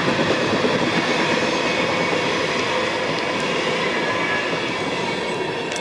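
Empty open-top coal cars of a freight train rolling past on the rails: a steady rumble of wheels and car bodies that eases off slightly as the last car goes by.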